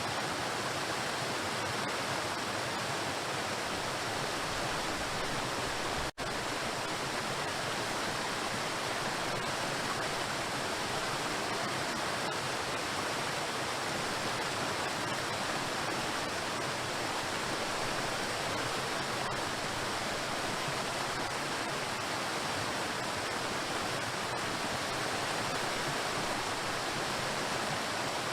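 Waterfall: water crashing against rocks in a steady, dense rush, with a momentary dropout about six seconds in.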